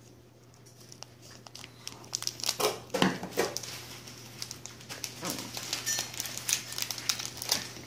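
Foil Pokémon booster pack wrapper crinkling and crackling irregularly as hands work it open, loudest about three seconds in.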